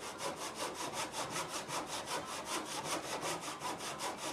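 Hand saw cutting through a wooden board in a plastic miter box, rasping back and forth in a quick, even rhythm of short strokes.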